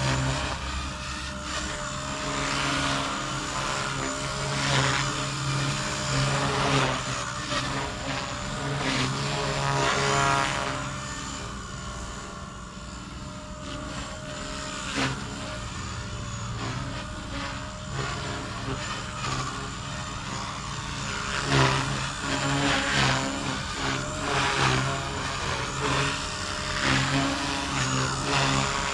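Blade Fusion 180 electric R/C helicopter in flight: the motor and rotor whine rises and falls in pitch as it manoeuvres. Its canopy is buzzing from vibration the whole time.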